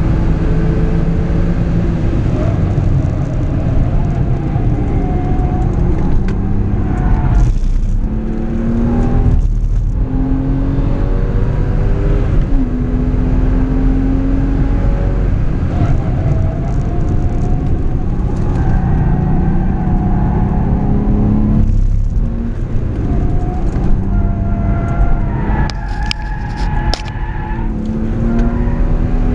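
Porsche 996's flat-six engine heard from inside the cabin, pulling hard on track: its pitch climbs, breaks briefly at each gear change about 7 and 10 seconds in and again near 22 seconds, then climbs again. A few sharp clicks come near the end.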